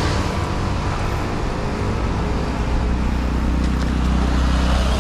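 A motor vehicle's engine running steadily, heard as a low hum over road noise. The hum grows slightly stronger about halfway through.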